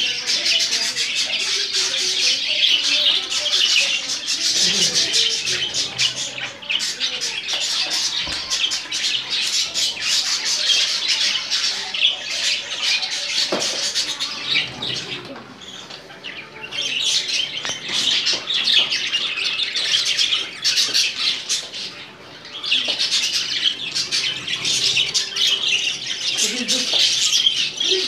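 Budgerigars chattering and squawking: a dense, continuous warbling of short high notes that dips briefly about halfway through and again about three-quarters of the way through.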